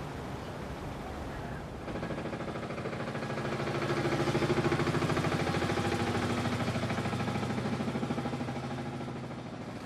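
A boat's inboard engine running with a fast, steady chug. It comes in about two seconds in, swells to its loudest near the middle and fades away toward the end.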